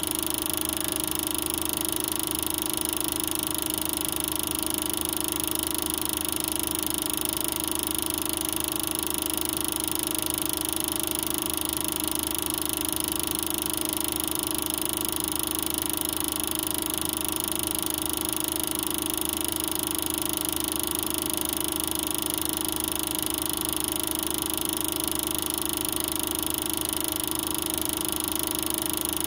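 Super 8 film projector running, a steady mechanical whir with several constant tones and no change in level.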